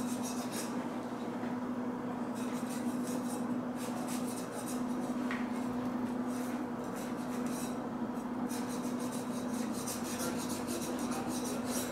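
A large kitchen knife scraping and slicing through crocodile meat along the carcass, in several bouts of quick fine ticks with short pauses between. A steady low hum lies under it.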